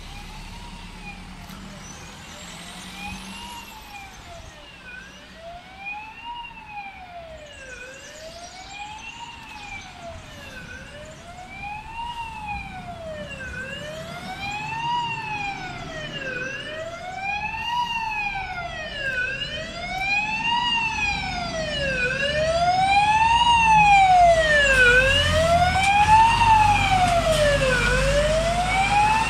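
Fire engine siren wailing, its pitch sweeping smoothly up and down about every second and a half, growing steadily louder as the truck approaches and loudest near the end. The truck's engine rumble comes in underneath during the last few seconds.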